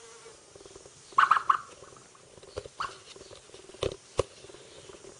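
Young ostrich chirping: a quick run of short chirps about a second in, then a couple of single short notes, with two sharp clicks near the end.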